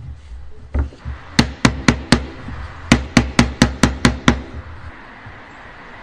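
Sharp knocks on hardwood as a piece of a wooden joint is tapped home: a run of four quick taps, a short pause, then seven more, about four a second.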